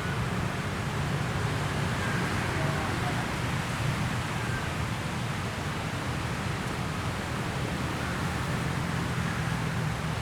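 Beach ambience: a steady wash of surf, a continuous rushing noise with a low rumble and only gentle swells in loudness.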